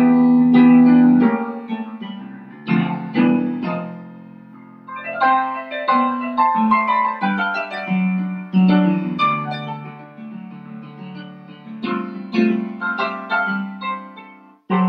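Piano music playing chords and a melody, the notes struck and fading, in phrases with short lulls. It breaks off briefly near the end, then starts again.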